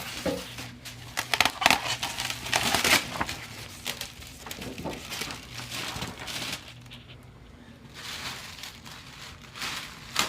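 Packaging being handled and pulled open: irregular crinkling, rustling and scraping of wrapping and cardboard, loudest in the first few seconds.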